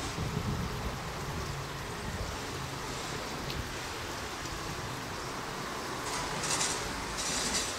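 Steady outdoor background noise with an uneven low rumble, and two short bursts of hiss near the end.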